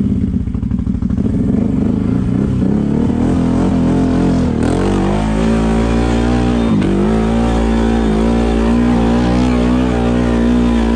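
ATV engine chugging at low revs, then revving up and pulling hard, held at high revs with two brief drops in revs at about four and a half and seven seconds in.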